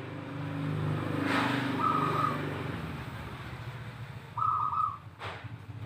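Zebra dove (perkutut) cooing: two short trilled phrases, one about two seconds in and one about four and a half seconds in, played as a lure call to get other doves singing. A low steady hum runs underneath, and a brief click comes near the end.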